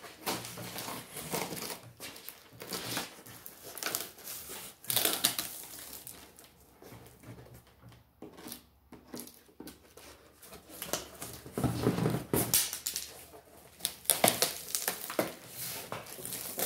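Corrugated cardboard packing being handled: flaps and inserts of a shipping box scraping, bending and rubbing against one another in irregular bursts, with a short lull about eight seconds in.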